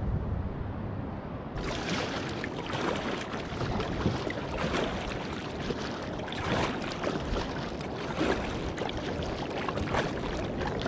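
Kayak paddle strokes, the double blades dipping and splashing into the sea about once a second, with water washing along the kayak's hull. The strokes start about a second and a half in, after a brief steady wash of water.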